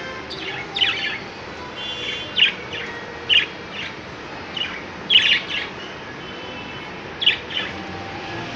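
Budgerigars chirping: a string of short, sharp chirps at irregular intervals, the loudest a little past the middle, with faint warbling between them.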